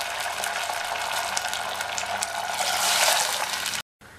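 Water just poured into a stainless steel pot of hot oil, fried onions and tempering spices, sizzling and bubbling steadily as it hits the hot fat. The sound cuts off suddenly near the end, leaving a faint hiss.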